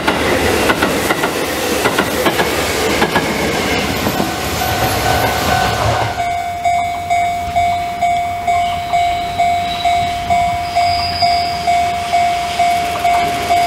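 A Sanyo Electric Railway 3000-series electric train passing close by, its wheels clacking over the rail joints. About six seconds in, that cuts to a railway level-crossing bell ringing about twice a second.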